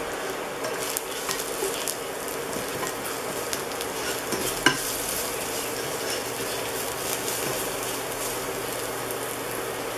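Crushed garlic and ground pepper sizzling in a little hot oil in a pot while being stirred, with light scraping and tapping of the utensil against the pot. One sharper tap about halfway through.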